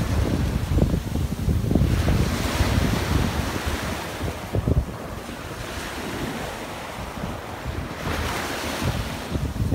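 Wind buffeting the microphone in irregular low rumbles, over a broad rushing wash that swells near the start and again near the end.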